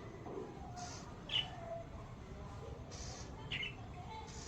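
A bird giving short, sharp chirps, two loud ones about a second and a half in and near three and a half seconds in, with a few fainter high sounds between.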